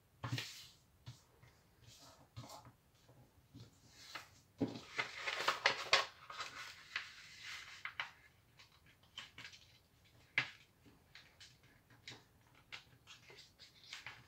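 A sheet of A4 printer paper rustling and crinkling as it is folded by hand and the creases are pressed flat, in short scattered scrapes and taps. A denser stretch of rustling comes about five seconds in.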